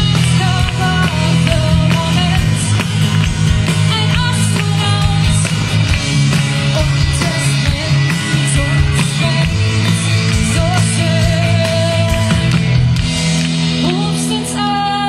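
Live band music with a singer, played loud through an open-air stage's PA system and recorded from within the crowd.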